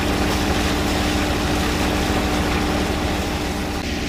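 A sailboat's engine running steadily as the boat motors along, a constant hum and low rumble with water rushing from the wake; the rush eases a little near the end.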